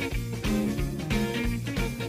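Background instrumental music with guitar and a steady beat.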